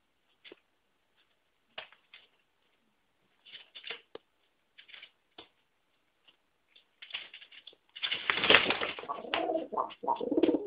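Pet bird calling angrily: a few faint, short scratchy sounds, then from about eight seconds in a loud, continuous run of calls.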